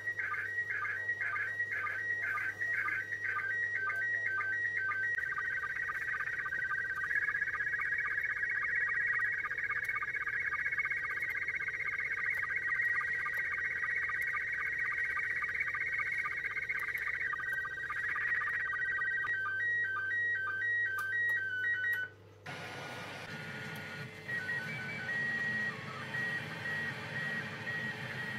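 Slow-scan television (SSTV) signal from the International Space Station, received on 145.800 MHz FM: warbling tones between about 1 and 2.3 kHz as an image scans in line by line. Short alternating beeps follow, and about 22 seconds in the sound cuts to a quieter steady hiss with faint intermittent tones.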